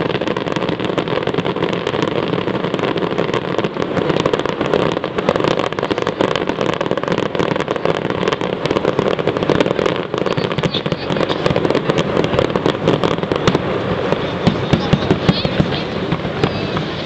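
Fireworks display: a dense, continuous barrage of crackling bangs and pops from many shells going off at once, with more separate sharp pops standing out near the end.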